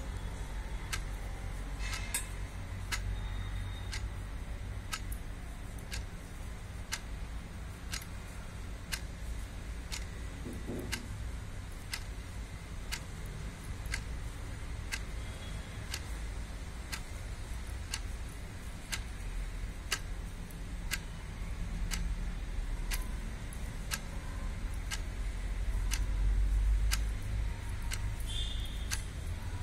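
A clock ticking steadily, about one tick a second, over a low steady background hum.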